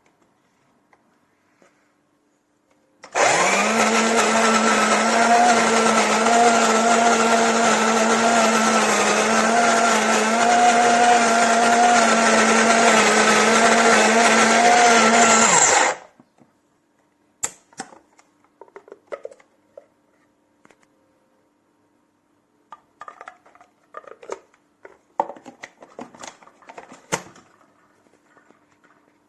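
Electric flat burr coffee grinder's motor running at a steady pitch for about thirteen seconds, starting and stopping abruptly. It is followed by scattered light clicks and knocks.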